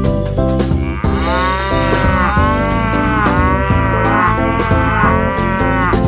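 Cow mooing sound effect: a run of about five moos in quick succession starting about a second in, each rising and then falling in pitch, over background music.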